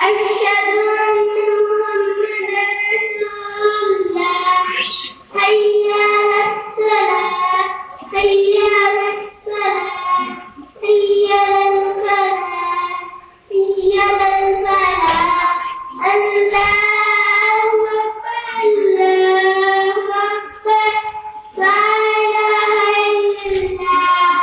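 A boy's voice calling the adhan (the Islamic call to prayer) into a handheld microphone. He chants in long, drawn-out melodic phrases with short pauses for breath between them.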